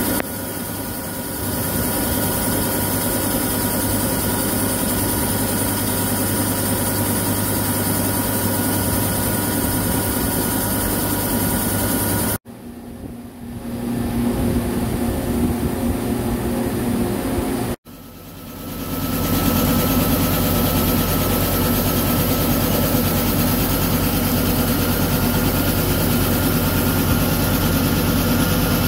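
Horizontal boring machine's milling cutter rough-milling a titanium block: a steady, loud machining noise with a constant whine in it. It breaks off abruptly twice and swells back in each time.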